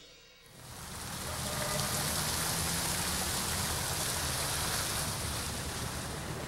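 Water from a stone plaza fountain's jet splashing into its basin: a steady rushing noise that fades in during the first second and then holds even.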